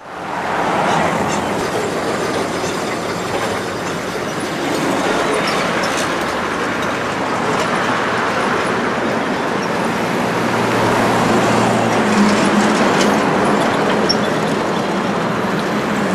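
Loud, steady roar of vehicle noise, with a low engine hum about ten seconds in.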